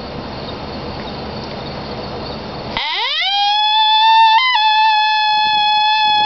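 Hand-made cow horn howler, a coyote predator call voiced as a female, blown in one long howl. About three seconds in the pitch sweeps steeply up, then holds high and steady, with a brief upward break about halfway through the held note.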